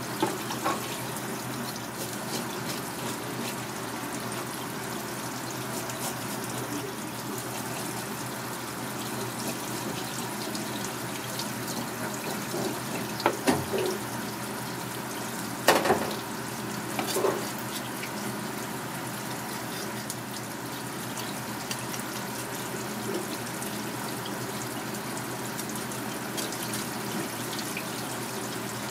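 Tap water running steadily onto a cutting board in a sink, with a few sharp knocks about half a second in and again around the middle.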